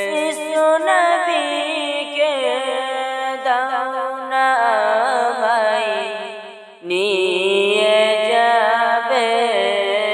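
Devotional naat sung solo with ornamented, wavering melodic runs over a steady low held note, with little or no instrumental backing. One phrase fades out about six and a half seconds in and the next begins straight away.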